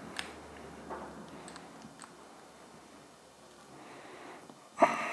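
Soft scattered clicks and light scraping as a small Phillips wrench tightens a clamp screw on a pair of binoculars. A loud, sharp knock comes near the end.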